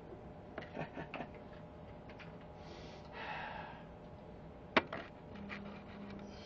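A man's breath, drawn or let out about three seconds in, among a few light clicks, with one sharp click near five seconds; a short low hummed note near the end.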